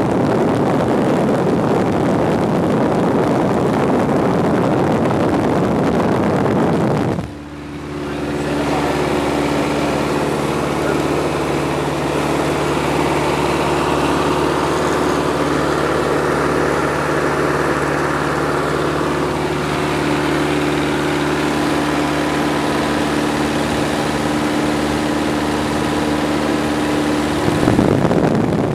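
A Piper Cub's engine droning steadily in flight, heard from inside the cabin with air rushing past. The sound drops briefly about seven seconds in. After that the engine's steady hum comes through clearly with less rush, and the rushing returns near the end.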